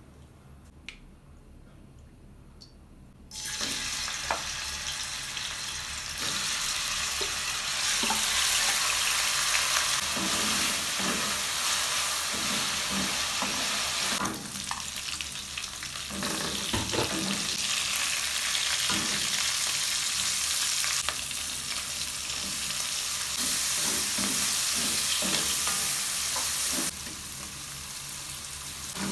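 Food sizzling in hot oil in a non-stick frying pan, stirred with a wooden spatula that scrapes and knocks against the pan. The sizzle starts suddenly about three seconds in and then stays loud, rising and falling in level.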